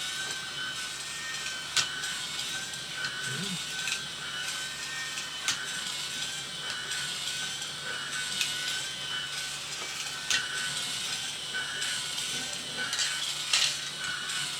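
Small electric motor whirring steadily through the plastic gear train of a 3D-printed Roto-Matic robot base as it runs its walking and turning clutch mechanism, with a sharp click every few seconds.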